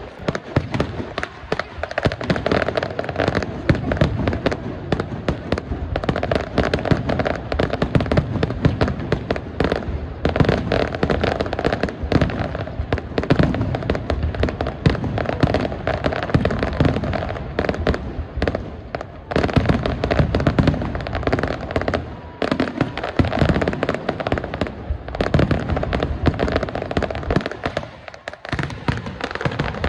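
Fireworks display: a dense, continuous barrage of aerial shell bursts and crackling, many sharp bangs a second, easing off briefly near the end before building again.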